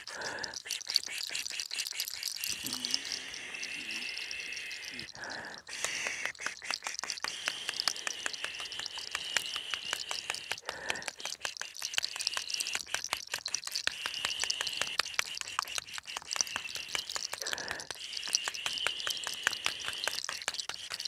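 Cinnamon sticks rubbed and scraped against long hair, making a rapid, dense crackling.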